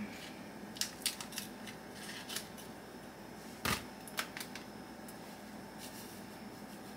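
Scattered light clicks and rustles from hands handling kitchen packaging while seasoning meat on foil. The loudest click comes a little before four seconds in, over a faint steady room hum.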